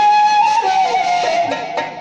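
Sha'bi folk music led by a reedy wind instrument holding one long note, which then steps down in pitch in the second half.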